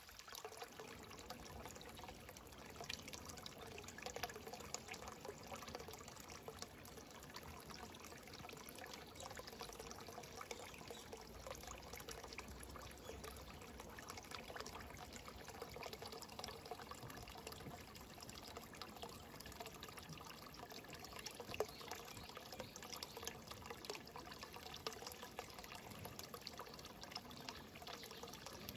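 Faint, steady trickle and splash of a thin stream of water pouring from a pipe spout into a small garden pond.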